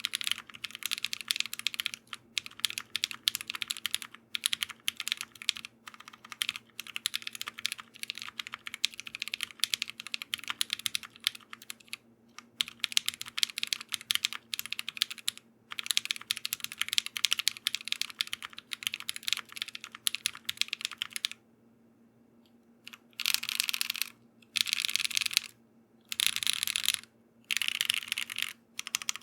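Typing on a custom mechanical keyboard, a Velocifire Sun68 with lubed Kingfisher switches on a polycarbonate plate and GMK keycaps. Steady runs of keystrokes with short breaks, a pause of about two seconds a little past two-thirds of the way in, then several short bursts of typing near the end.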